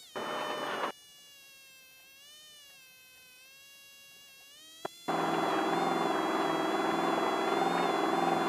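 Off-road race vehicle's engine running, heard from inside as a buzzing whine over a rough rumble. About a second in, the rumble cuts out for some four seconds, leaving only a faint whine that wavers in pitch, then comes back loud.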